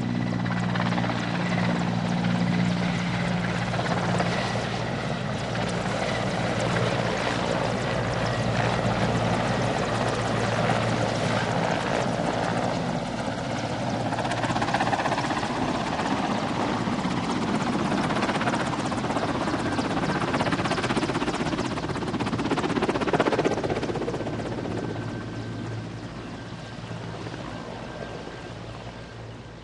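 Mil Mi-8 helicopter, its twin turboshaft engines and rotor running, with steady low tones at first and then a level that swells and ebbs. From about 24 seconds in it fades steadily away.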